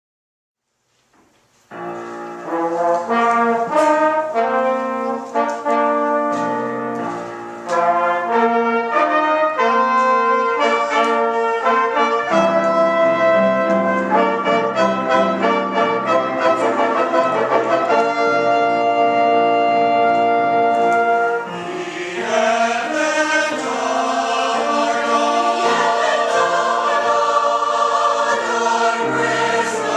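A Christmas choir concert opening with an instrumental introduction of held, chord-like notes that starts about two seconds in. A mixed choir comes in singing with the accompaniment about two-thirds of the way through.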